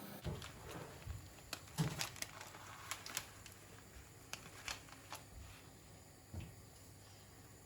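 Scattered light clicks and a few soft knocks, as of objects being handled and set down, most of them in the first few seconds.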